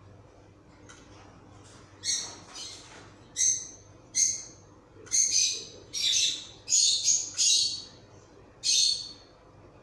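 A run of about ten short, high-pitched chirping calls, loud and irregularly spaced, between about two and nine seconds in.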